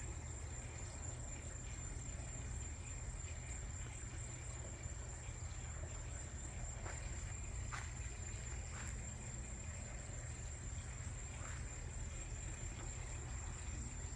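Night insects keeping up a steady, high-pitched drone, with a few faint short chirps scattered through and a low steady rumble underneath. No thunder is heard: the heat lightning is silent.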